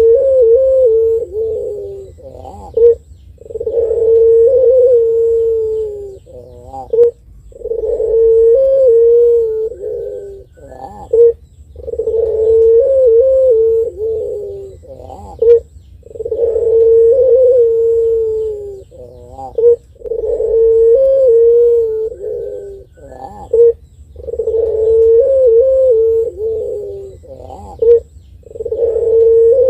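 Puter pelung, a long-voiced strain of Barbary dove, cooing. Each cycle is a long rolling coo of two to three seconds followed by a short note, and the cycle repeats about every four seconds.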